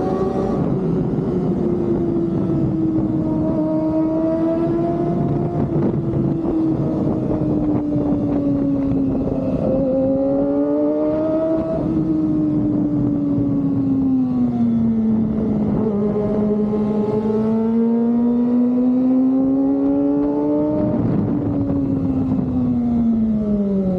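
Kawasaki ZX-25R's 250 cc inline-four engine through an Austin Racing exhaust, held at high revs while riding, its pitch drifting slowly up and down. Near the end the revs fall steadily as the throttle is rolled off.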